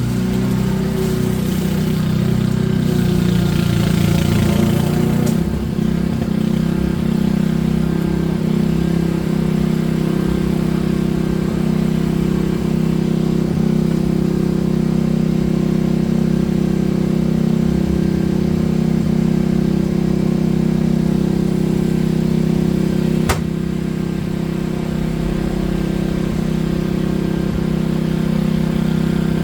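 Small petrol engine of a garden machine running steadily at constant speed, with an airy hiss over it for the first few seconds and a single sharp click about 23 seconds in.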